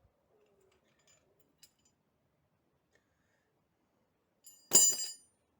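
A single sharp metallic clink with a short bright ring, about four and a half seconds in, as of metal struck against metal. A few faint ticks come before it.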